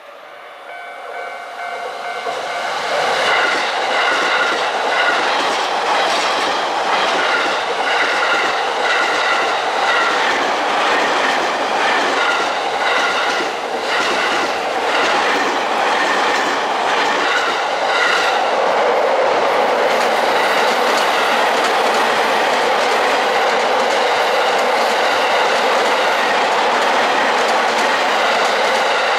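Electric commuter train passing close by, wheels clattering over the rail joints. It builds up quickly over the first few seconds and then runs steadily and loudly. A high squeal pulses on and off through the first half and stops about eighteen seconds in, leaving a steady running rumble.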